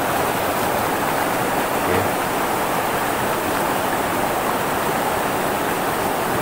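River water rushing over rocks: a steady, even rush.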